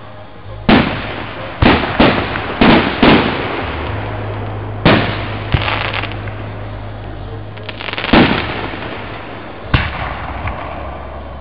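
Aerial fireworks shells bursting overhead: about nine sharp bangs at uneven intervals, the first about a second in and several in quick succession over the next few seconds, each trailing off.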